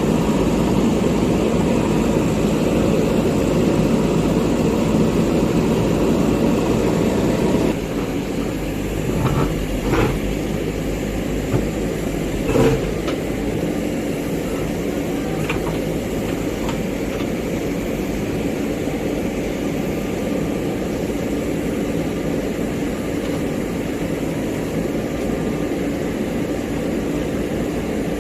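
Backhoe loader's diesel engine running steadily; its note drops to a quieter level about eight seconds in, and a few short metallic knocks follow.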